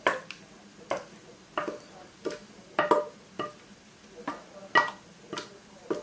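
Stainless steel pot clanking as thick glutinous rice porridge is emptied from it into the kimchi seasoning. There are about ten sharp metal knocks, roughly half a second apart, each with a short ring.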